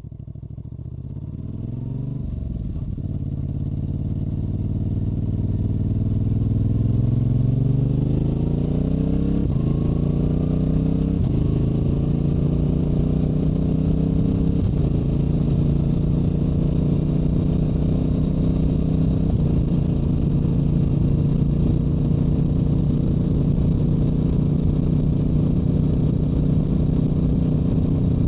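Stock Yamaha YZF-R7 parallel-twin engine and exhaust pulling hard through the gears. The pitch climbs in each gear and drops at four upshifts over the first twenty seconds, then holds steady at highway cruising speed, with wind rushing past the helmet.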